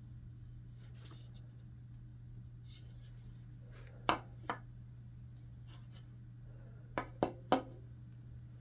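Wooden ash bowl being set down on a steel lathe bed: light rustling as it is handled, two sharp knocks about four seconds in, and three quick knocks near the end as it is placed and adjusted, over a steady low hum.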